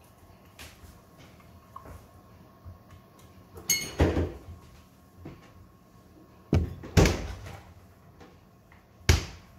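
Fridge-freezer doors being opened and shut: a handful of thuds, the loudest about seven seconds in, and a door slam just after nine seconds.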